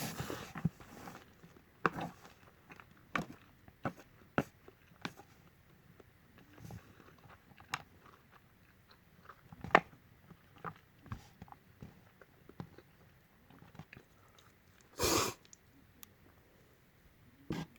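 Close-up eating of Peyang instant yakisoba: irregular chewing, smacking and small clicks of noodles and utensils, with one louder noisy burst lasting about half a second roughly fifteen seconds in.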